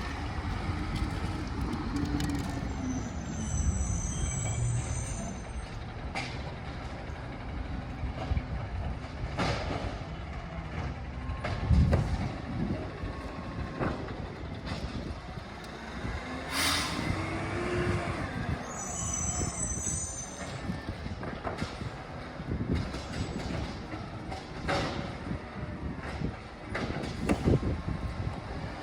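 Recycling truck working a pickup. Its engine note rises and falls twice, and each time a high-pitched squeal follows, over a steady mechanical rumble.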